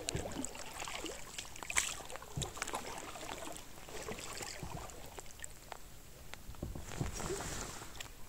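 Canoe being paddled in toward the bank: paddle strokes splashing and dripping, with scattered knocks against the hull.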